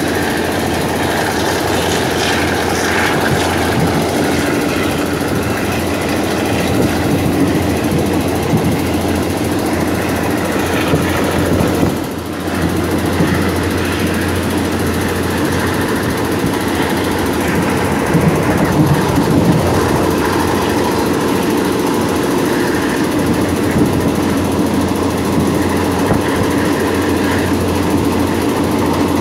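Passenger train running, heard from inside an open-windowed carriage: the steady noise of wheels on the rails and the carriage rattling, over a constant low hum, with a brief dip about twelve seconds in.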